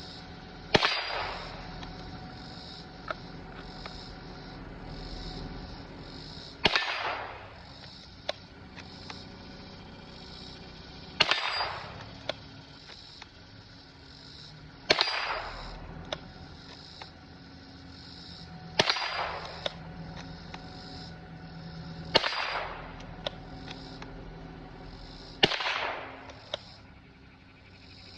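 Seven .22 LR rifle shots from a Ruger Precision Rimfire, spaced about four to six seconds apart, each a sharp crack with a short ringing tail and a fainter click about a second later. Insects chirp steadily in the background.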